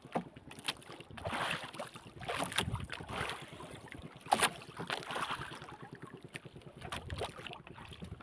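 Choppy water sloshing and slapping against a small boat's hull, with wind on the microphone and a few sharp knocks, the loudest about four seconds in.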